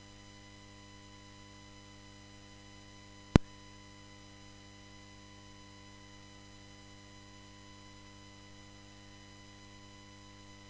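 Steady electrical hum and buzz from the audio feed, a stack of unchanging tones with no speech. One sharp click about three and a half seconds in.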